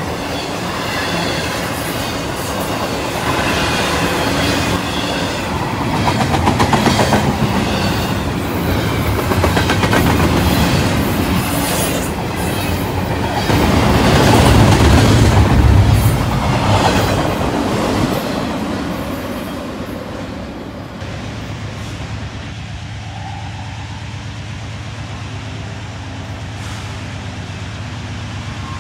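Double-stack intermodal freight cars rolling past close by, steel wheels clattering and rumbling over the rail joints with some wheel squeal. About two-thirds of the way through this fades to a quieter, steady low drone of diesel locomotives approaching from a distance.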